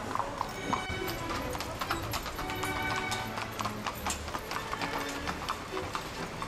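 A pair of carriage horses' hooves clip-clopping on the street as the horse-drawn carriage passes, with music playing alongside.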